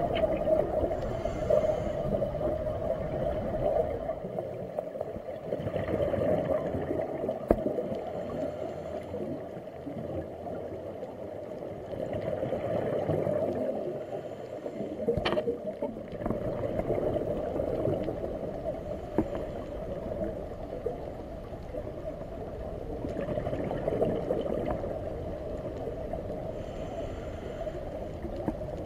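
Scuba diver's regulator breathing recorded underwater: a hissing inhale and gurgling exhaled bubbles, repeating about every five to six seconds, with one sharp click about halfway through.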